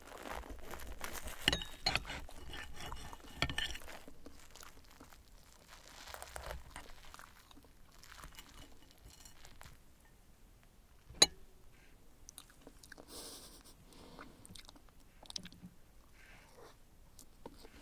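A metal knife and wooden fork cutting a fluffy souffle omelette on a ceramic plate, with scrapes and a few clinks against the plate in the first few seconds, then chewing. One sharp clink of cutlery on the plate about eleven seconds in.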